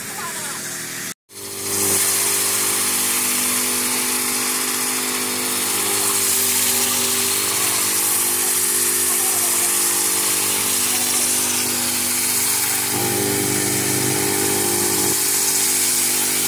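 Walk-behind power trowel's small engine running steadily as its spinning blades float the wet concrete slab. It starts after a short dropout about a second in.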